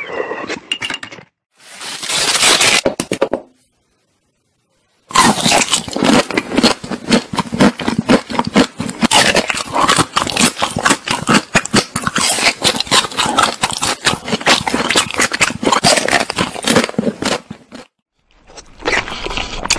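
Close-miked eating sounds: a short drinking sound from a test tube at the start, then after a brief pause a long run of dense, rapid crunching and chewing of frozen ice cream bars.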